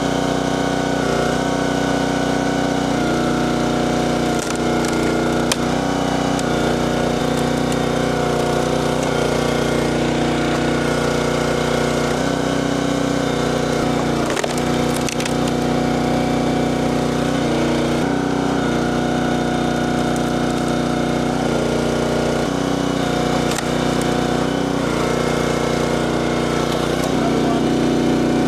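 Small gasoline engine of a log splitter running steadily, its pitch dipping and recovering as it takes load, with occasional sharp cracks of wood splitting.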